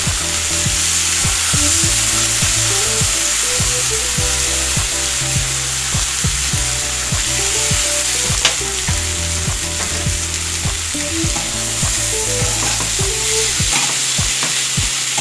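Chicken breasts sizzling and frying in butter and lemon juice in a stainless-steel pan. Near the end, a spatula scrapes and turns the pieces with quick clicks.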